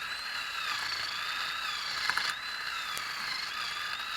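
Power tool motor spinning a wire brush against a corroded wheel hub, its whine wavering in pitch as the brush bites and eases off the scale.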